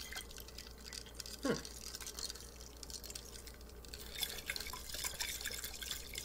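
Water sloshing and swirling inside a sealed glass jar as it is spun upside down, with one short sound dropping steeply in pitch about one and a half seconds in and a few light clicks later on.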